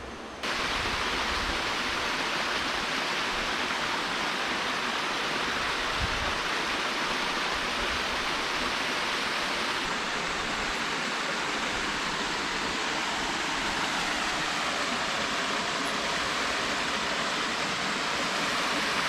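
Mountain valley stream running: a steady rush of flowing water that starts abruptly about half a second in.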